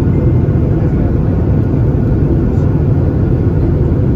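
Steady low rumble of a Boeing 737-800 airliner heard from inside the passenger cabin, the engines and airflow running evenly in flight.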